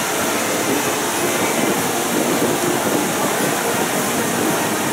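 Steady rushing noise of air and machinery from riding a circling Dumbo the Flying Elephant vehicle, even and unbroken throughout.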